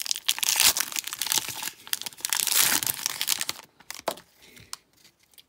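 Foil trading-card pack wrapper crinkling and tearing as it is pulled open by hand. Busy crackle for about three and a half seconds, then it drops away to a few light clicks.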